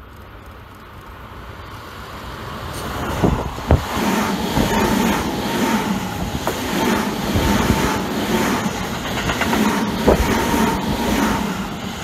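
Tobu 9050 series electric multiple unit passing close by. It grows loud about three seconds in with a double clack of wheels over a rail joint, then runs on with rhythmic clacking of the bogies over the joints under a steady whine, dropping away near the end.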